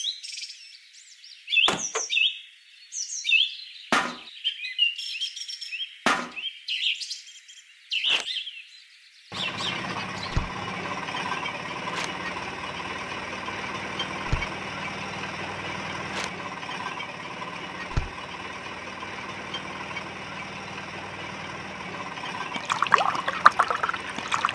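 Birds chirping for the first few seconds. Then a steady, even whirring noise sets in. Near the end liquid starts pouring from the spouts of a toy juice machine into small tin buckets.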